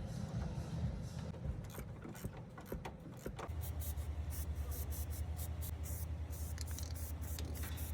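Mechanical ratchet-like clicking, irregular and sharp, over a low rumble. About three and a half seconds in, a steady, fast-pulsing low hum starts.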